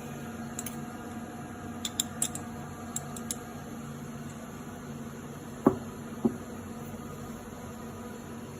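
A steady hum of running equipment, with a few light clicks in the first few seconds and two sharp knocks about six seconds in, half a second apart.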